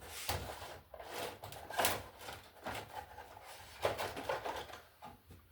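Rustling and a few sharp clicks from hands handling small plastic parts and wiring, here the Ideal lever connectors about to be fitted to the neutral wires.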